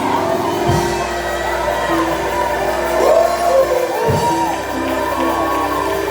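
A church congregation shouting, whooping and singing out over loud, steady church music in a praise break.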